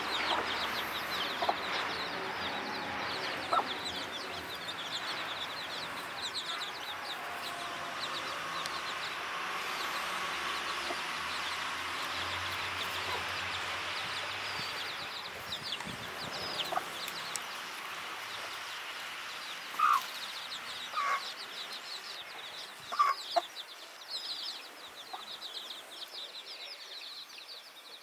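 Chickens calling: a continual run of short high peeps, typical of chicks, with a few louder short clucks between about two-thirds and three-quarters of the way through.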